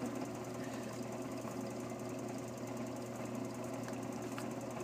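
Vacuum pump running steadily as it pumps down a bell jar: a constant hum with a fast, even mechanical chatter.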